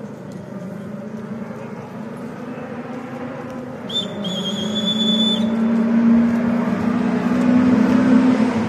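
Rally car engine approaching, growing steadily louder as its pitch slowly rises. A whistle blows once, about a second and a half long, about four seconds in.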